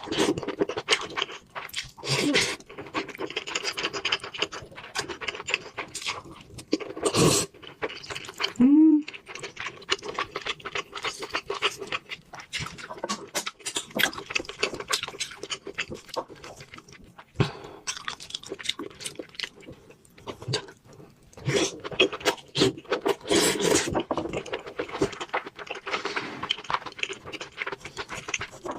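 Close-miked eating: wet chewing, lip smacks and mouth clicks with heavy breathing through the nose, and occasional scraping of food and hands on a plate.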